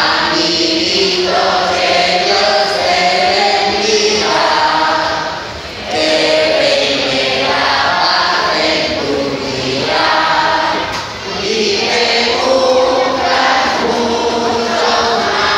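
Many voices singing a song together over music, in long sung phrases with brief breaks about six and eleven seconds in.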